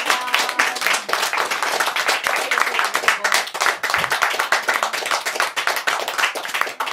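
A small audience and the performers clapping their hands together in steady, dense applause.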